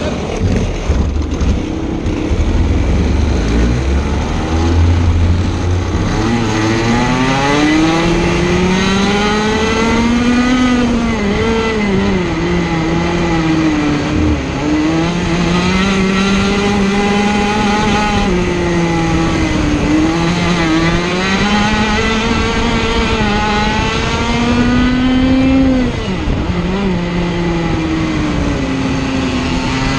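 Sirio TT85 100cc two-stroke kart engine picking up after a push start, then revving hard. Its pitch climbs on each straight and drops as it slows for the corners, several times over.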